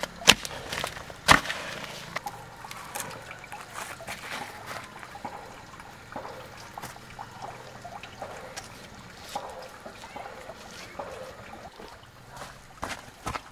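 A hoe striking and scraping through wet cement mortar, with two sharp knocks in the first two seconds. Then wet mortar sloshes and river stones click softly as they are pressed into the mortar on a stone wall.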